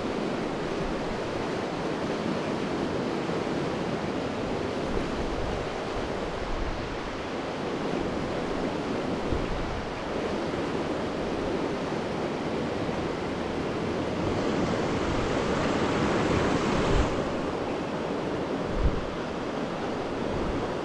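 Steady rush of a mountain river's current and rapids, with occasional low thumps of wind on the microphone.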